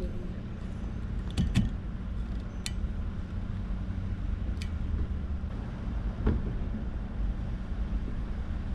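Several sharp plastic clicks and taps from a windshield wiper blade being worked onto the wiper arm's hook, over a steady low hum. One click sounds like the blade locking in, but the blade has not seated in the U-shaped hook.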